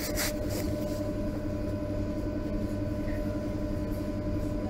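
Interior of a Berlin U-Bahn H97 train: a steady low rumble with a constant electrical hum of several tones, and a brief hiss right at the start.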